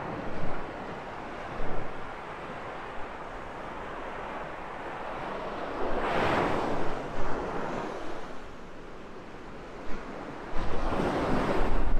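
North Sea surf breaking and washing up a sandy beach, swelling about six seconds in and again near the end. Wind rumbles on the microphone toward the end.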